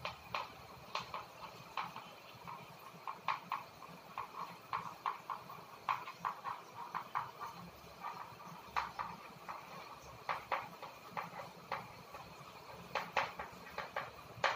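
Chalk writing on a chalkboard: an uneven run of short taps and scratches, several a second, as letters are written.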